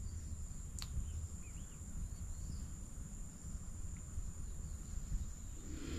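Outdoor ambience: a steady, high-pitched insect trill, with a couple of faint bird chirps and a single click about a second in.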